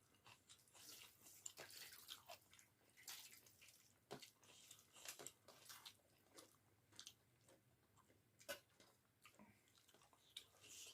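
Close-miked chewing and mouth sounds of someone eating curry and rice: soft wet smacks with occasional crunchy bites, in quick irregular clicks throughout.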